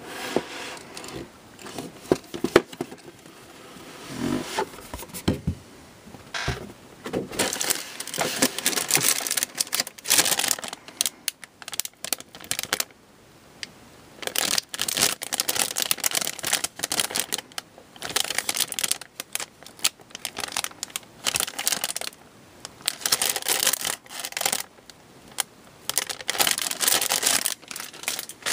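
Plastic bags of model-kit runners and the cardboard kit box crinkling, rustling and scraping as they are handled, in irregular bursts with short pauses, with a sharp click about two and a half seconds in.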